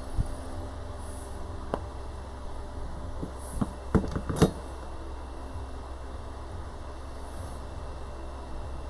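A few light knocks and clicks of motorcycle fork parts being handled as the dust seal is fitted onto the fork, the two loudest about four seconds in and half a second apart, over a steady low hum.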